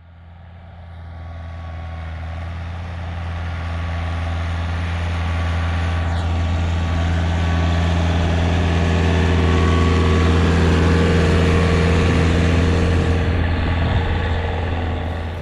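Farm tractor engine running steadily with a low, even hum, growing louder over the first ten seconds or so.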